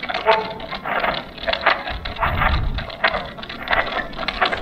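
Spirit box sweeping through radio stations: rapid, choppy bursts of static and clipped snatches of broadcast sound, about three a second. A low rumble comes in about two seconds in.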